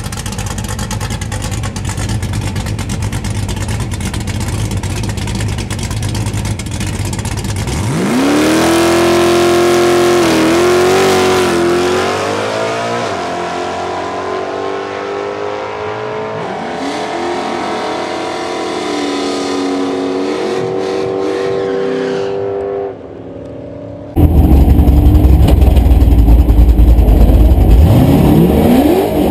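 Naturally aspirated drag-racing Ford Mustang engine. It rumbles at idle, then revs up steeply about eight seconds in as the car launches, and its pitch dips at a gear shift as the car pulls away down the track and fades. After an abrupt change the engine is heard much louder and deeper from inside the car, revving up again near the end.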